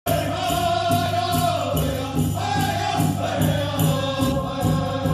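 Powwow song: a group of singers chanting in high, held voices over a steady drumbeat of about two beats a second.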